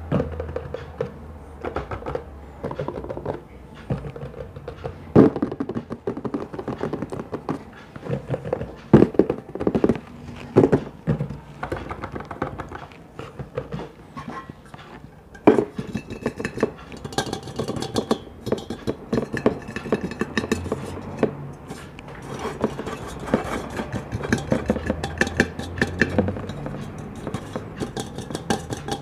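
ASMR tapping and handling of objects: irregular knocks and clicks, a few louder thunks, growing busier and scratchier about halfway through, over faint background music.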